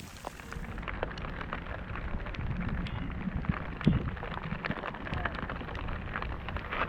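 Typhoon rain pattering with many small drop hits, over a low rumble of wind buffeting the microphone.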